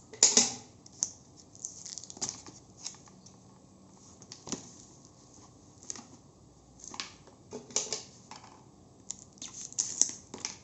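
A small cardboard product box being opened and handled by hand: irregular rustles, scrapes and clicks of packaging, the loudest right at the start.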